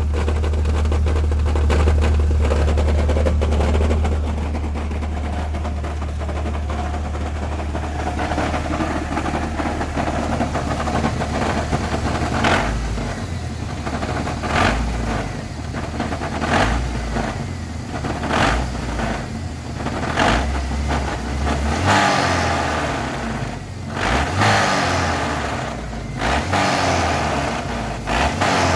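1998 Chevy S10's 2.2-liter four-cylinder engine running with the AC loading it, making a knocking noise that gets worse with load on the motor. The owner leans towards a crank bearing but can't rule out the transmission. Steady at first; from about halfway through, sharp knocks come through repeatedly as the engine note shifts.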